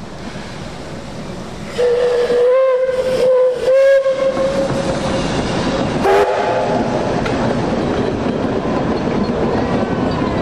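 Five-chime steam whistle (a VR 5 chime) on a narrow-gauge steam locomotive sounded over the steady noise of the running train: a long chord-like blast about two seconds in, broken briefly a few times, then one short blast about six seconds in.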